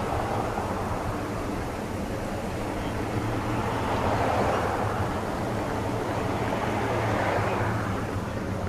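Street traffic: vehicles passing steadily, with a low engine hum underneath and the noise swelling twice as cars go by, about halfway through and near the end.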